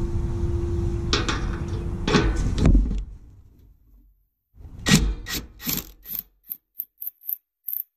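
Cordless impact wrench on a long extension running down the bolt of a muffler band clamp: a steady motor whir with rasping surges for about three seconds. After a short pause come a few irregular bursts and then a quick string of short clicks near the end.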